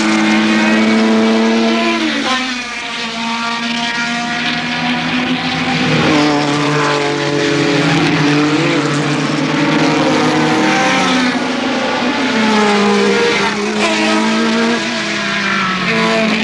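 Group 5 racing cars passing at full throttle. Their engine notes rise and fall several times as the cars accelerate, change gear and go by.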